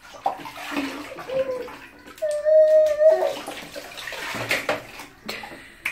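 Water splashing and being scooped and poured over a baby in a plastic baby bathtub. The baby makes short vocal sounds, including one held note lasting about a second, a couple of seconds in. More splashing follows about four seconds in.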